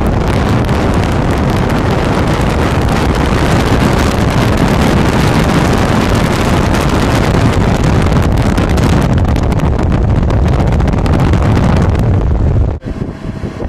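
Strong wind buffeting the microphone: a loud, steady rushing heaviest in the low end, which cuts off abruptly near the end.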